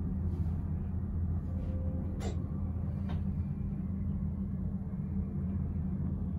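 Steady low hum and rumble inside a moving cable car gondola, with two short clicks about two and three seconds in.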